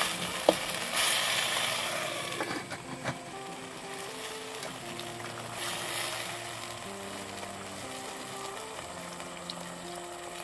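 Sweet potato shoots sizzling as they are stir-fried in a metal pot, loudest in the first two seconds, with a metal spoon clicking against the pot a couple of times. Soft background music with held notes comes up after a couple of seconds and stays under the fainter sizzle.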